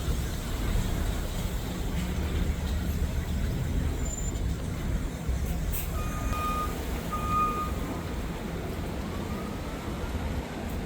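City street traffic with a steady low rumble of heavy vehicles. A little past the middle come two short, even beeps, and near the end a siren begins, rising in pitch.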